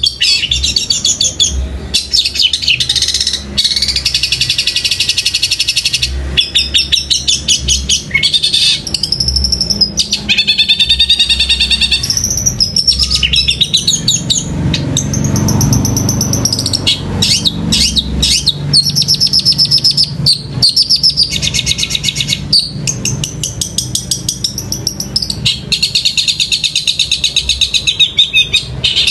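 Long-tailed shrike (cendet) singing a fast, nearly unbroken chattering song of rapid high trills, worked through with mimicked Eurasian tree sparrow chirps.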